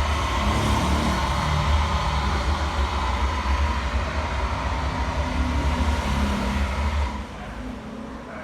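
Steady low vehicle rumble, like a car running or driving. It drops off noticeably about seven seconds in.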